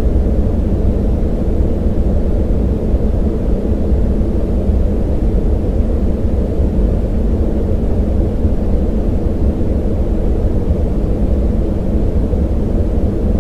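Steady synthetic yellow noise: a deep, even hiss boosted in the low mids, with little treble. It sounds like the inside of a passenger jet in flight and does not change.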